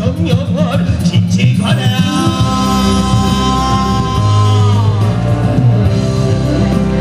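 Pansori singing over a band accompaniment with steady heavy bass and drums; a long held note starts about two seconds in and bends downward about five seconds in.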